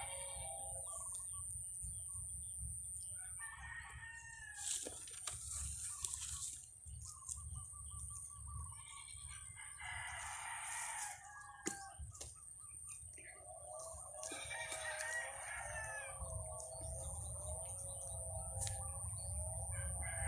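Several drawn-out animal calls at intervals, wavering in pitch, with the longest about two thirds of the way through, over a steady low rumble.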